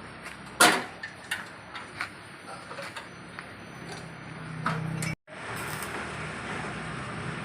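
Sharp knocks and clicks of parts and tools being handled during car repair work, the loudest about half a second in, over a low steady hum. The sound drops out briefly just after five seconds.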